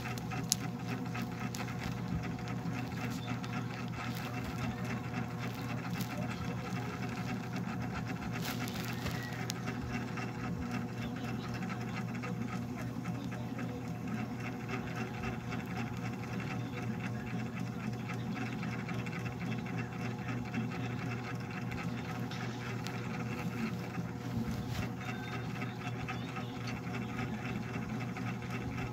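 A small motor humming steadily with a fast, even rattle.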